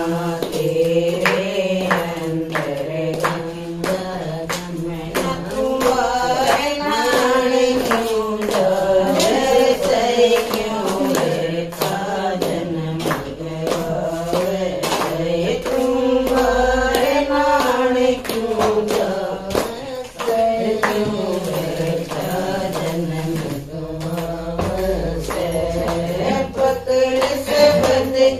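Women singing a Haryanvi bhajan, a Hindu devotional hymn, to a simple repeating melody, keeping time with steady hand-clapping.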